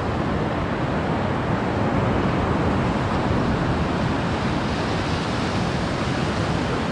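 Sea surf washing steadily on the shore, with wind on the microphone.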